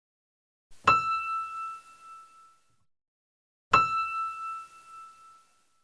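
A bell-like chime struck twice, about three seconds apart, each strike ringing one clear pitch that fades out over about two seconds.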